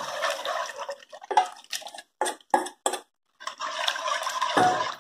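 Cornmeal (fubá) slurry poured from a metal bowl into a pot of boiling water, followed by a run of short clicks and knocks against the aluminium pot. After a brief gap comes the scrape and slosh of the polenta being stirred in the pot.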